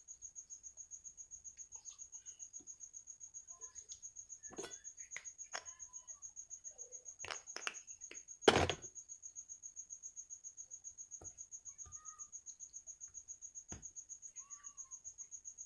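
A cricket chirping steadily, a high pulsing note repeating about five or six times a second, with scattered small clicks and one loud knock about halfway through.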